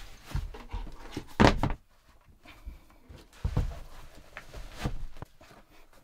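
Rustling and a few dull thumps as a hiking boot is pulled on and laced up, with the boot knocking on a wooden floor; the loudest thump comes about a second and a half in.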